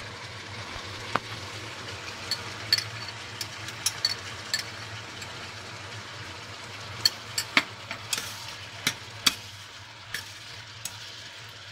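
A metal spoon clinks and scrapes against a stainless-steel pot and a small ceramic bowl as tomato paste is scooped into a pot of beans and stirred through. The sharp clicks come irregularly and bunch together in the second half, over a steady low hum.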